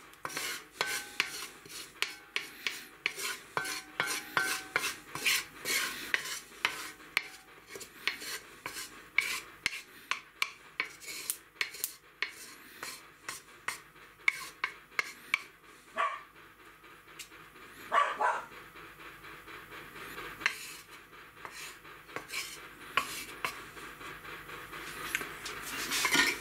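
Wooden spatula scraping and knocking against the inside of a hot cast-iron roaster as melted sheep-tail fat is worked over its surface to season it. The strokes come several a second for roughly the first fifteen seconds, then thin out to occasional scrapes.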